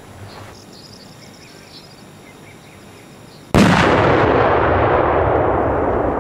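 Quiet open-air background with a few faint bird chirps, then about three and a half seconds in a large firecracker goes off in one sudden, very loud blast. It is followed by a long rumbling noise that fades only slowly.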